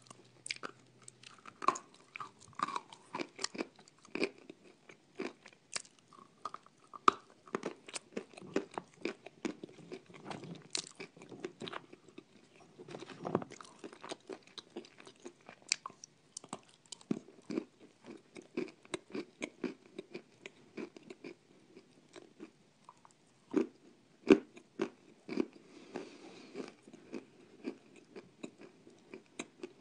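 Close-miked biting and chewing of dry edible clay chunks: a dense run of sharp, crisp crunches and crackles.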